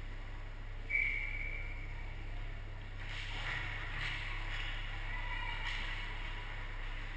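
Ice-rink ambience: a steady low hum of the arena, with distant skates scraping the ice and faint far-off voices. A short high tone sounds about a second in.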